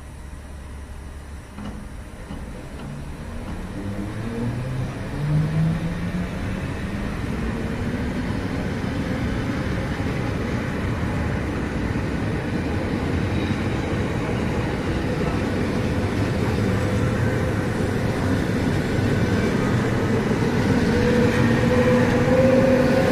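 ЭП2Д electric multiple unit pulling away and accelerating: a whine from its traction drive rises in pitch in steps while the rolling noise grows steadily louder.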